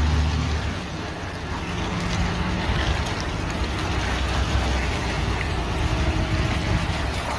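Steady rush of running water as a muddy toy forklift is washed clean, with a low steady hum underneath.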